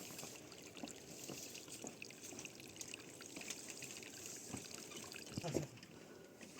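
Faint trickling and splashing of flowing river water, with small irregular ticks throughout. A brief louder sound comes about five and a half seconds in.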